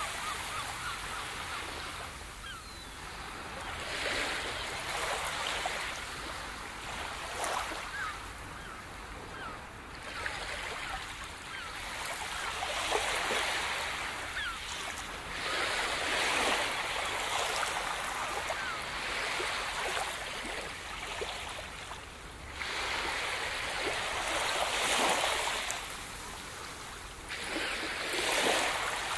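Ocean surf washing onto a shore, swelling and fading every few seconds.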